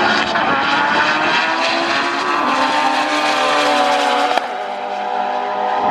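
Sport compact drag cars running at full throttle down the strip, their engines holding a high, steady pitch, with a brief click about four seconds in. The sound cuts off suddenly at the end.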